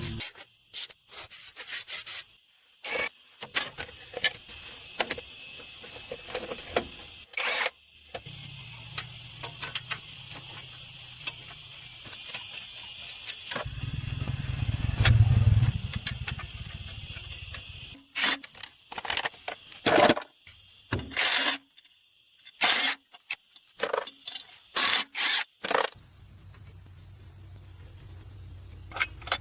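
Workshop repair sounds: a run of sharp metal knocks and clatters, with stretches of a low, steady hum that is loudest about halfway through.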